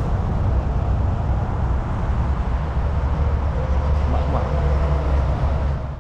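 Steady low rumble of wind buffeting the camera's microphone, with handling noise from the camera being carried while walking.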